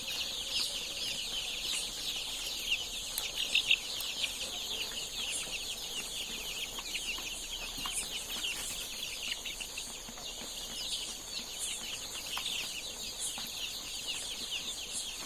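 A flock of Kadaknath chickens cheeping non-stop in a dense, high-pitched chatter of many overlapping short calls.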